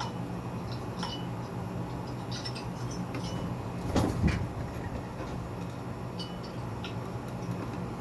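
Encon Chilli Pepper ceiling fan running with a steady motor hum and scattered light clicks, and one louder thump about four seconds in.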